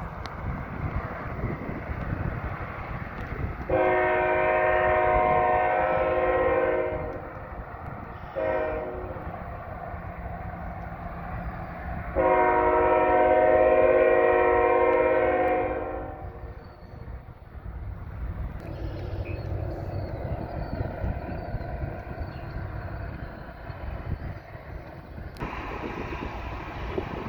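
Locomotive's Nathan K5LL five-chime air horn sounding the grade-crossing signal: a long blast, a short one, then another long blast. A steady low rumble and wind noise run underneath.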